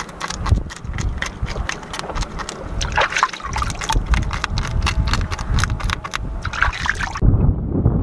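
A knife scraping the scales off a small fish by hand: a quick, uneven run of sharp scratchy clicks over a low rumble. About seven seconds in, the scraping stops and only the low rumble remains.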